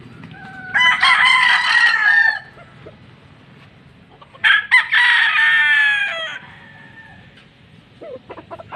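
Gamefowl roosters crowing: two long crows about four seconds apart, each sliding down in pitch at the end.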